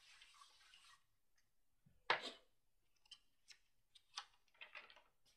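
Cloth pounce bag filled with contractor's chalk being patted over a perforated paper pattern: a string of soft, irregular taps, the loudest about two seconds in, followed by several lighter pats.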